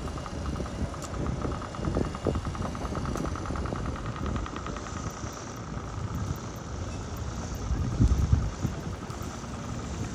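City street traffic: a steady low rumble of cars on the road, with a louder vehicle passing about eight seconds in. A fast, even ticking is heard through the first half.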